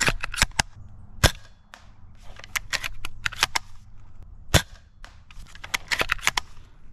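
Bolt-action airsoft sniper rifle being fired, with sharp shots about a second in and about four and a half seconds in, and runs of quicker, lighter clicks between them as the bolt is racked.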